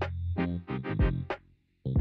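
Background music: a run of short, separate notes with sharp starts, pausing briefly near the end before the next note.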